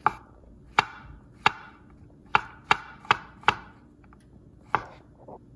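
Chef's knife slicing button mushrooms on a wooden cutting board: eight sharp knocks of the blade striking the board at an uneven pace, with a quicker run of four around the middle.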